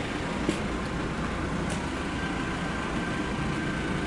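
Steady ambient background noise with a low rumble and no speech. Two faint clicks come about half a second and about a second and a half in.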